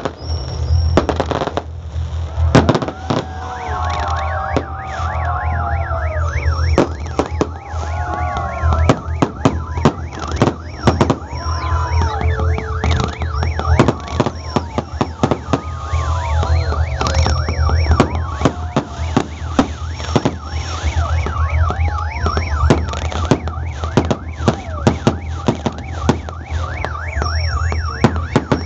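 A fireworks display going off: rapid bangs and crackling from shells and cake fireworks, with many shrill whistles gliding up and down in pitch over the bangs. A steady low hum runs underneath.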